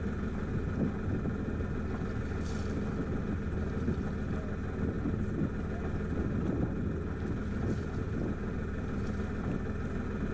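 A sailboat's engine running steadily, a constant even hum as the boat motors slowly, with a little wind noise on the microphone.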